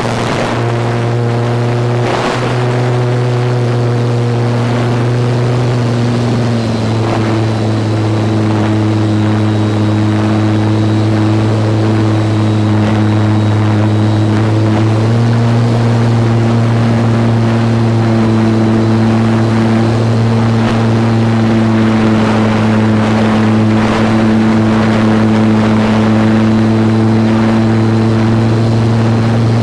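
Electric motor and propeller of a radio-control Slow Stick plane droning steadily in flight, heard close up. The pitch drops slightly about six seconds in and rises again about fifteen seconds in as the throttle changes.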